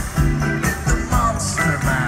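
A live band playing music through a large stage sound system.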